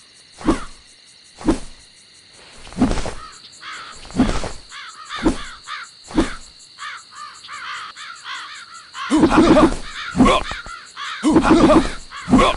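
Kung fu fight sound effects: single punch hits, each with a short swish, land about once a second, then from about nine seconds in a faster, louder flurry of hits mixed with pitched, caw-like cries.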